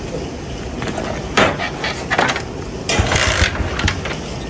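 Scattered knocks and clatter of hand work on a motorcycle, with the sharpest knocks about a second and a half in and around three seconds in, over a steady low rumble.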